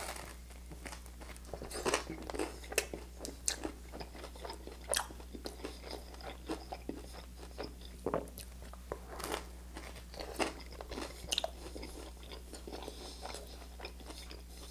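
A bite into crisp toast topped with canned pasta in tomato sauce and ranch dressing, followed by steady chewing with many small, irregular crunches.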